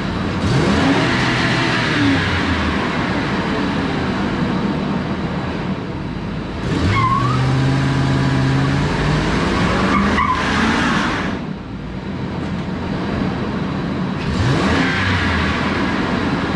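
Ford 5.4 L Triton V8 revved hard three times, its pitch climbing on each run, while the rear tires spin and squeal on concrete in a burnout. The engine pulls cleanly on fresh spark plugs and coil packs, its misfire from a fouled rear cylinder cured.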